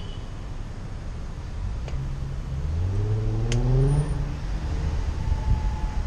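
Rumble of slow city traffic, with a nearby vehicle's engine revving up, rising in pitch, between about two and a half and four seconds in; two light clicks are heard along the way.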